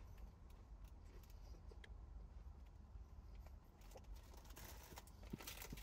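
Near silence: faint low room hum with a few soft clicks.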